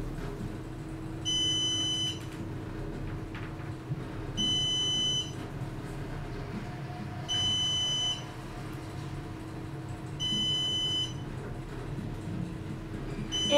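Elevator floor-passing chime: a high electronic beep, a bit under a second long, sounding about every three seconds as the car passes each floor, five times in all. A low steady hum from the moving elevator car runs underneath.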